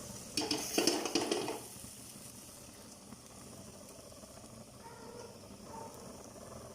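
Boiled kidney beans going into a pan of frying masala: a short burst of clatter and crackle in the first second and a half, then a faint steady sizzle from the pan.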